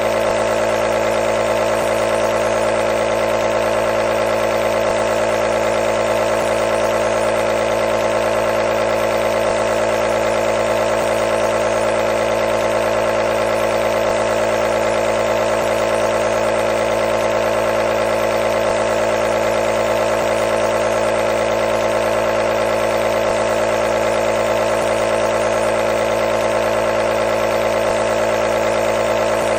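Nebulizer compressor running with a steady, unchanging buzzing hum.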